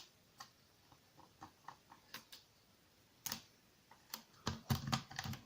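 Lock pick and tension wrench working the pins of a Yale rim cylinder lock: scattered light metallic clicks, louder and closer together from about three seconds in.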